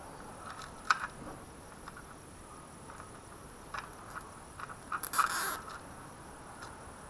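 A nylon cable tie being pulled tight around the cam chain: a short ratcheting zip about five seconds in, after a few light clicks of handling.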